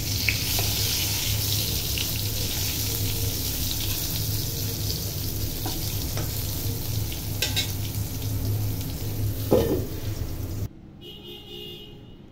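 Brinjal (eggplant) slices frying in hot oil in a pan: a steady sizzle over a low hum, with scattered clicks and scrapes of a spatula turning them. The sizzling cuts off abruptly near the end.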